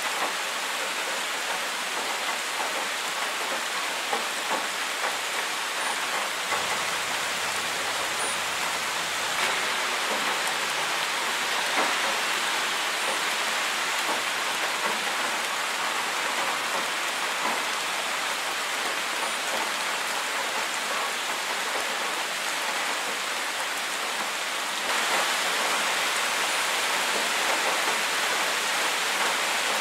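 Steady rain falling, an even hiss of drops that gets a little louder near the end.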